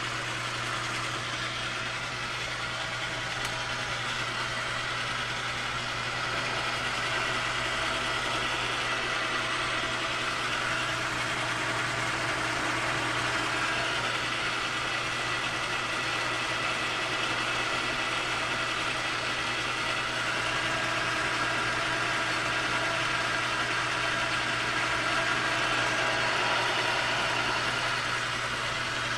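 South Bend lathe running on power feed, taking a turning cut with a carbide insert: a steady machine hum under a continuous cutting hiss, growing slightly louder midway through.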